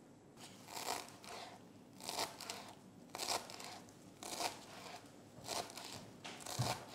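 Chef's knife chopping fresh dill on a plastic cutting board: slow, even cuts about a second apart, each a short crisp crunch.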